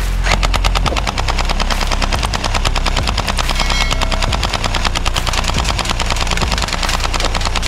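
Toy AK47-style blaster firing on full auto: a rapid, steady rattle of shots, one close after another without a break.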